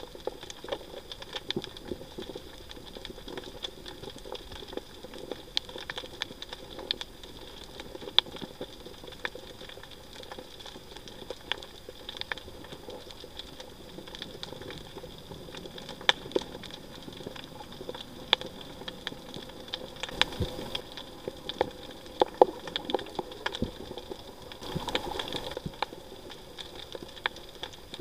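Underwater crackling on a rocky reef: a continuous scatter of irregular sharp clicks, a few louder than the rest, over a steady high tone.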